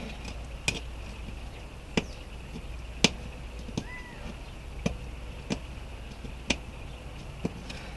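Fingernails picking and tapping at a sticker on an RV's metal range hood: about seven sharp, light clicks at irregular intervals over a low steady hum, with one brief faint chirp about halfway through.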